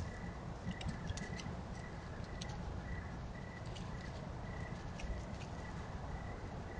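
Outdoor night ambience: a steady low rumble and hiss with scattered faint light clicks and a faint, broken high tone that repeats about twice a second.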